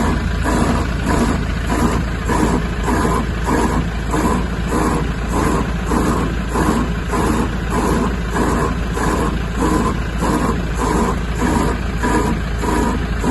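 Rhythmic grinding groan from a Hyundai Starex's wheel hub as the wheel turns, pulsing about twice a second over a steady low engine hum. The owner takes it for the shaft inside the hub making noise when it runs without load.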